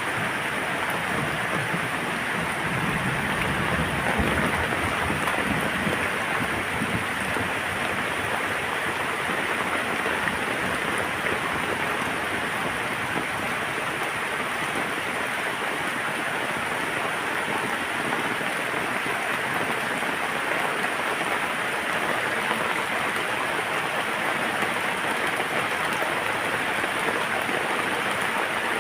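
Steady rain falling, an even hiss, with a low thunder rumble that fades out over the first several seconds.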